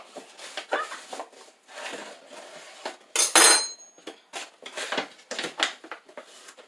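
A butter knife scraping and tapping against a measuring cup while flour is scooped and levelled, with one louder, ringing metallic clink about halfway through.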